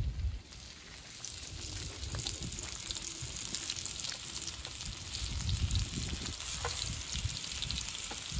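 Bombil (Bombay duck) fish sizzling steadily as it fries in oil on a grill pan over a wood fire; the sizzle builds up about a second in. A brief knock right at the start.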